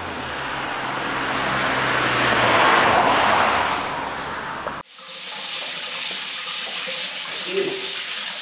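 A swelling rush of noise over a low hum that cuts off abruptly partway through, followed by a steady hiss of water running.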